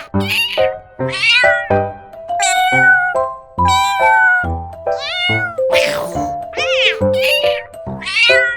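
Domestic cat meowing again and again, about eight drawn-out meows that rise and fall in pitch, over background music with a steady beat.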